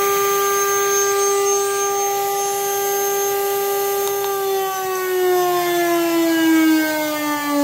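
Water-cooled 2.2 kW CNC spindle running steadily on its VFD at 400 Hz, about 24,000 rpm, with a steady whine. About four seconds in, the drive is stopped and ramps the spindle down, and the whine falls steadily in pitch.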